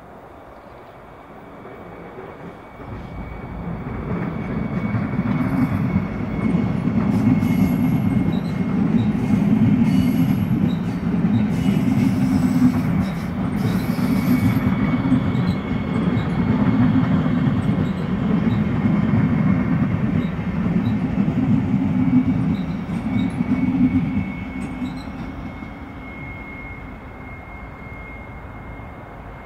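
Deutsche Bahn train passing on the tracks. The rumble builds over a couple of seconds, stays loud for about twenty seconds, then fades away. A thin, steady high squeal from the wheels runs over it.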